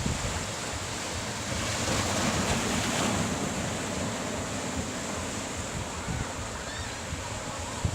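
Ocean waves breaking and washing in a steady rush of surf, swelling louder about two seconds in.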